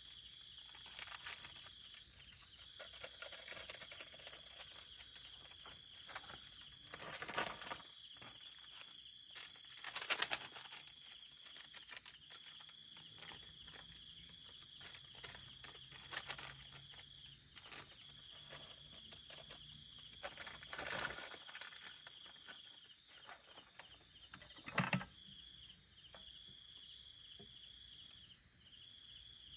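Crickets and other night insects chirring in a steady high-pitched chorus, with a few faint knocks or rustles from close by.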